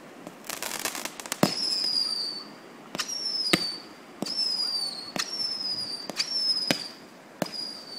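Fireworks going off in quick succession: a short burst of crackling, then about eight sharp bangs, most of them followed by a high whistle that falls slightly in pitch for under a second.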